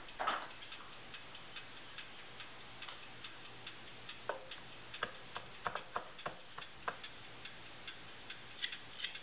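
Chef's knife chopping rosemary on a wooden cutting board: a handful of sharp taps between about four and seven seconds in, over a faint, steady, even ticking.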